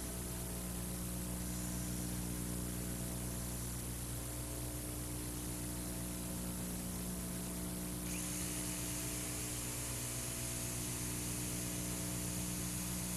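Steady electrical hum and hiss, with no clear tool sound; the high hiss brightens suddenly about eight seconds in.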